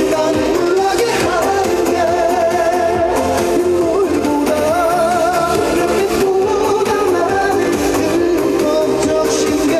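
Live trot song: a man singing held, vibrato-laden notes over a band backing track.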